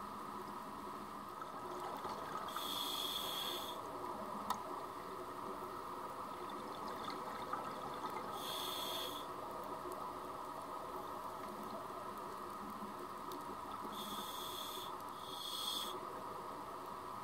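Scuba diver breathing through a regulator underwater: exhaled air bubbling out in a hissing gush about every six seconds, three times, the last in two gushes close together, over a steady low hum.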